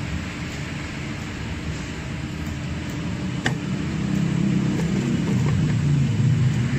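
A motor running with a steady low hum and some hiss, growing louder in the second half, with a single sharp click about halfway through.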